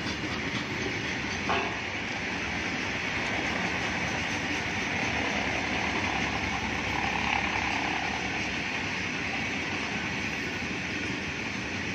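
Long freight train of open-top wagons rolling past: a steady rumble and hiss of steel wheels on the rails, with one brief knock about a second and a half in.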